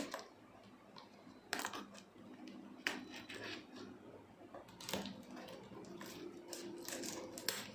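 Faint handling sounds of a cardboard parcel being opened by hand: soft scraping and rustling, broken by a few sharp clicks.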